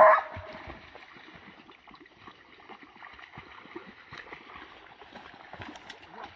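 A hunting dog's loud bark cuts off just at the start. Then comes faint, irregular rustling of tall grass with a low hiss of water.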